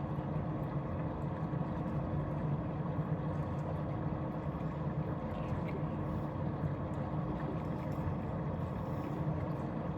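A boat's motor running steadily, giving a constant low hum with a faint steady tone above it.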